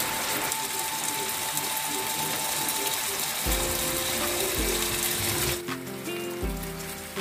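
Burger patties sizzling and crackling in shallow olive oil in a frying pan. Background music with held notes comes in about halfway through, and the sizzle drops away suddenly shortly before the end.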